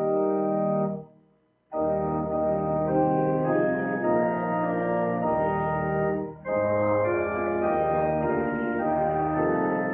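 Church organ playing slow held chords, stopping for a moment about a second in and breaking off briefly again near six and a half seconds, between phrases.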